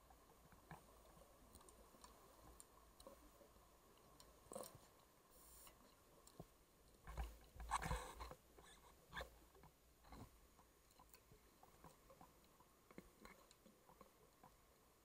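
Faint underwater sound picked up through a camera housing: scattered small clicks and crackles, with a louder rush of noise about seven to eight seconds in.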